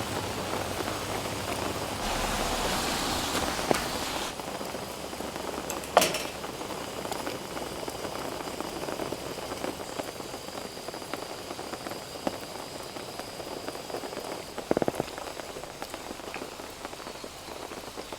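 Steady rain falling, an even hiss of drops, with a few light clicks and knocks: one about six seconds in and a quick cluster near fifteen seconds.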